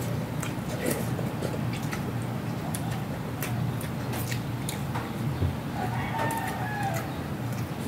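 Chickens clucking in the background, with a longer drawn-out call about six seconds in, over close-up eating sounds: short clicks and smacks of chewing and fingers on food, above a steady low hum.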